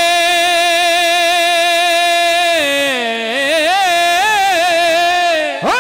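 A man singing a Punjabi naat, drawing out the end of a line in one long held note. The note dips lower about halfway through, then wavers in ornamented turns before breaking off near the end.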